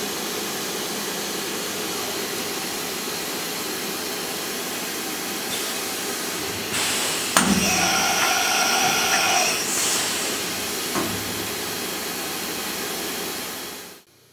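Vertical machining center under power: a steady hiss, then a sharp click about seven seconds in and a steady pitched whine for about two seconds. The sound cuts off just before the end.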